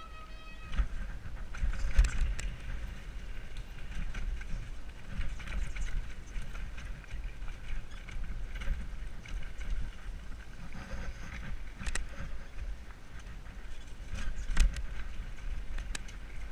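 Mountain bike descending a rough dirt trail: tyres rumbling over the ground, the bike rattling, and wind buffeting a helmet-mounted camera. Several sharp knocks from bumps, the loudest about two seconds in and near the end.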